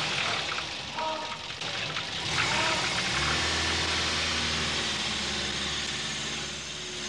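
Old car's engine running with road noise, heard from inside the car; a deeper steady engine hum comes in about three seconds in.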